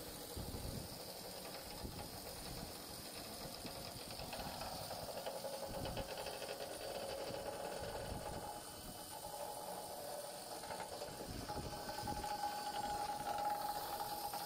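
Steady hiss and low machinery hum on a ship's open deck, with soft low thuds of wind buffeting the microphone throughout.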